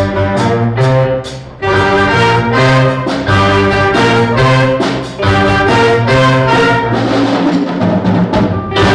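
Middle school concert band playing loudly, with brass and percussion. Full chords change every half second or so, with a strong chord struck near the end.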